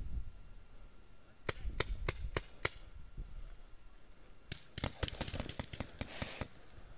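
Paintball markers firing: five sharp shots at about three a second, then a faster, denser volley of shots about halfway through, with a hiss under it.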